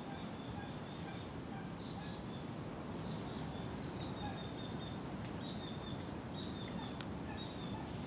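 Steady outdoor background rush with faint, short, high bird chirps recurring throughout.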